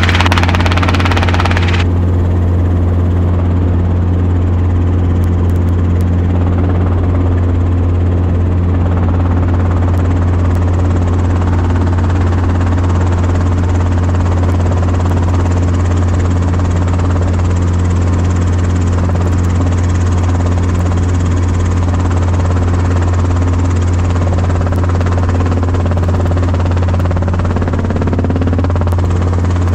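Small helicopter's rotor and engine droning steadily, heard from inside the cabin with the doors off. A strong low hum sits under it, and a brief rush of hiss fades out in the first couple of seconds.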